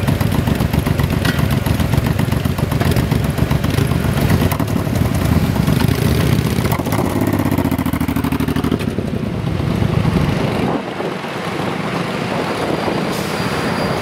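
Motorcycle engines running close by, revving up with a rising pitch and pulling away across the crossing, with car engines passing too. The loud engine noise falls away about eleven seconds in.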